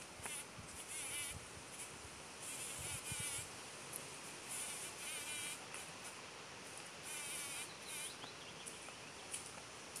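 Insects buzzing in repeated high bursts, each about half a second to a second long, coming every one to two seconds.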